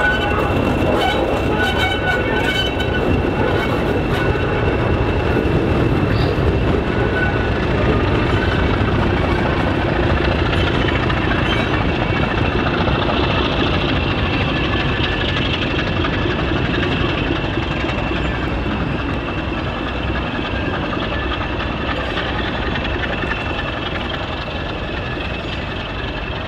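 English Electric Class 20 diesel locomotive hauling coaches past and away, its engine running with a steady high whistle. Wheels click over the rail joints in the first few seconds, and the sound slowly fades as the train draws off.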